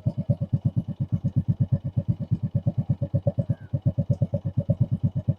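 Hero Passion Pro single-cylinder motorcycle idling steadily, its exhaust pulses coming about ten a second. The exhaust blows into an empty Red Bull can tied in front of the silencer outlet, which changes the exhaust note slightly.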